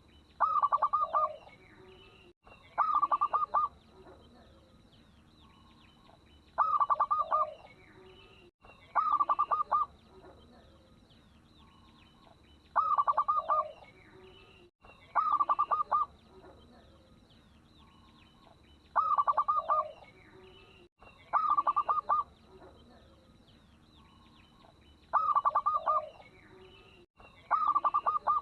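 Zebra dove (perkutut) cooing: pairs of short, rapidly trilled coo phrases ending on a lower note, the pair repeating about every six seconds in an identical loop. A faint steady high whine runs underneath.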